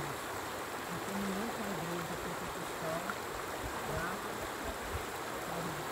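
River water running steadily. A man's low voice talks quietly over it, on and off.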